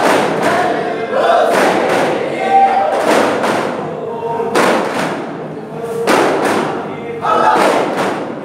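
Many daffs (single-headed frame drums) struck together in unison in a daff muttu performance: heavy combined strokes about every second, under a group of men singing a chant together.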